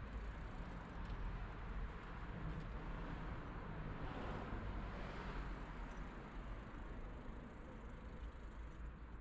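Steady city street traffic noise, with a vehicle passing by and swelling louder a little past halfway.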